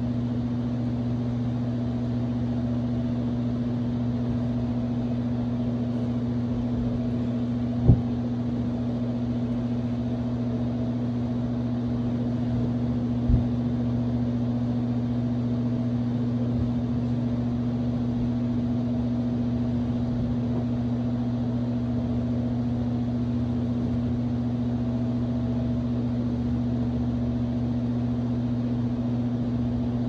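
Electric fan running steadily: a constant low hum under an even rush of air. Two brief thumps, about eight and thirteen seconds in.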